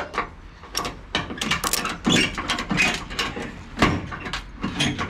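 Ratchet tie-down strap being cranked tight over a car's wheel on a transporter deck: a run of irregular metallic clacks from the ratchet handle.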